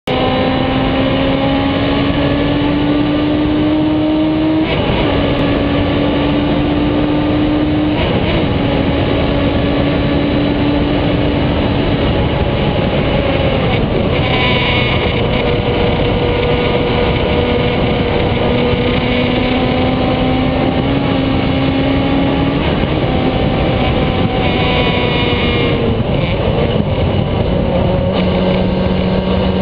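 Radical sports-racing prototype's engine running hard on track, heard onboard: the engine note climbs steadily and drops sharply at gear changes a few times in the first dozen seconds and again near the end, over steady wind and road noise.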